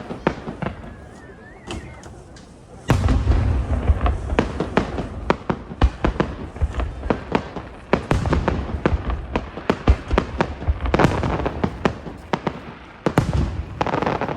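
Fireworks display: aerial shells bursting with deep booms and crackle. It is sparser and quieter for the first few seconds, then a loud burst about three seconds in starts a dense barrage of reports, and another heavy volley comes near the end.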